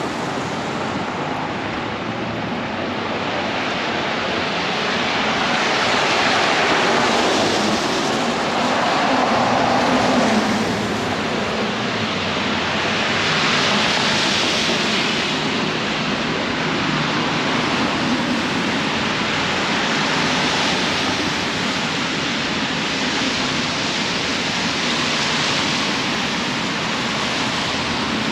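Wet city street traffic: a steady rush of tyres on rain-soaked pavement that swells and fades several times as vehicles pass.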